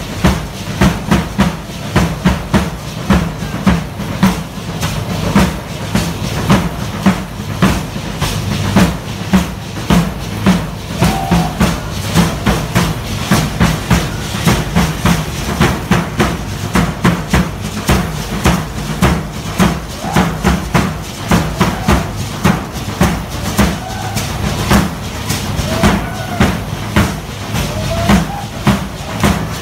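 Matachines dance drums beaten in a steady, fast rhythm, with the clatter of the dancers' rattles and stamping feet over it.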